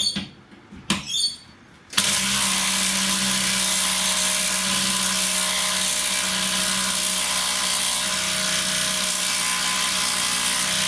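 Makita 40V XGT cordless impact tool hammering continuously as it drives a long bolt into stacked timber. The hammering starts sharply about two seconds in, after a couple of brief clicks, and runs at an even pitch until it cuts off suddenly at the end.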